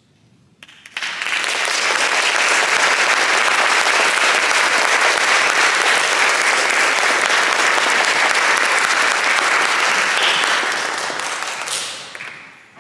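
Audience applauding at the end of a choral piece: the clapping starts about a second in, holds steady, and dies away near the end.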